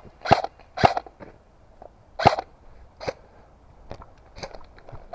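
Airsoft guns firing single shots, each a sharp crack, at irregular intervals of about half a second to a second and a half. The three loudest come in the first couple of seconds and fainter shots follow.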